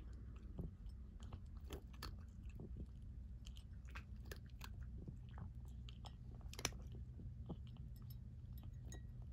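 A cat eating from a raised ceramic bowl: small irregular clicks and crunches of chewing, with one sharper click about two-thirds of the way through.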